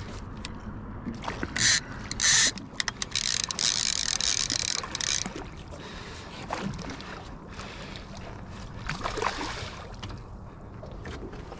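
Hooked sturgeon thrashing at the surface beside the boat: two short splashes, then a longer spell of splashing lasting about two seconds, over steady wind rumble on the microphone.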